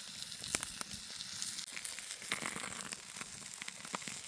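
Food frying in a pan: a steady sizzle with scattered sharp pops and crackles.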